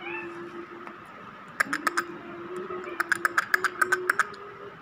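A rose-ringed parakeet gives a brief meow-like call, followed by runs of sharp clicks: four in quick succession about one and a half seconds in, then a faster run of about eight a second near the end.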